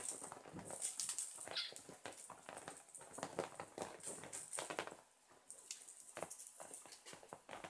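Kittens' claws scrabbling and scratching on a terrycloth towel draped over a folded mattress, in irregular bursts with soft knocks as they climb and pounce.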